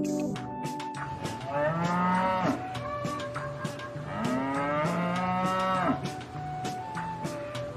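Cattle mooing: long calls that bend in pitch, one about two seconds in and another about four seconds in.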